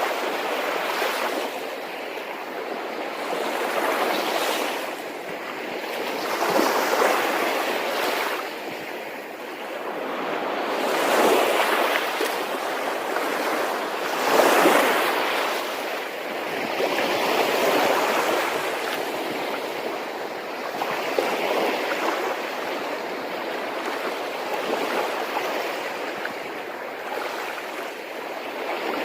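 Ocean waves washing in, a steady rush that surges and eases every few seconds, with wind.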